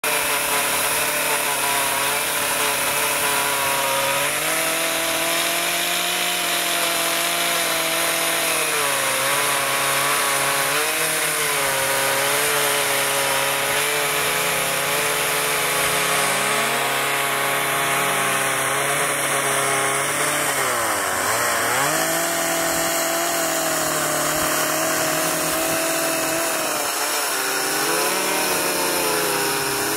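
Two-stroke chainsaw carving a wooden sculpture. The engine's pitch rises and falls with the throttle as the chain bites into the wood, and a little past two-thirds in the revs drop sharply and pick up again.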